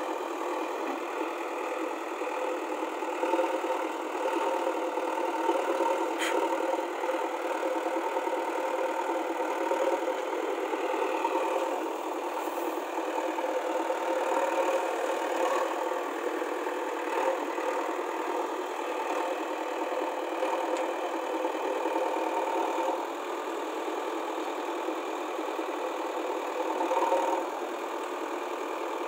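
JCB backhoe loader's diesel engine running steadily, its level rising and falling a little.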